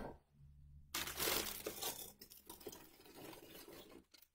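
Clear plastic bags crinkling and rustling as packaged soft baby carriers are picked up and handled, starting about a second in, after a light bump at the start.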